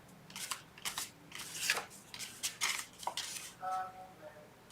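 Craft paper scraps being handled and laid down on a worktable: about five short rustles and scrapes, with a brief faint tone near the end.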